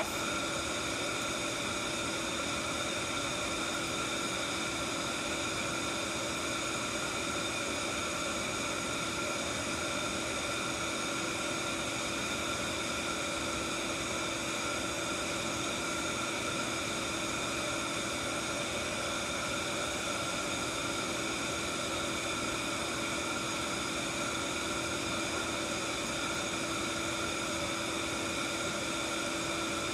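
Steady machine hum of running lab equipment: an even fan-like hiss with several steady whining tones, unchanging throughout.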